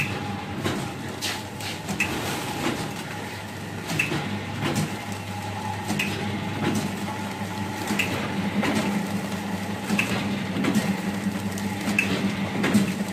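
Snack packing machine with a cup-filler disc running: a steady motor hum under a short sharp tick that comes about every two seconds with each machine cycle, with loose clicks and rattles in between.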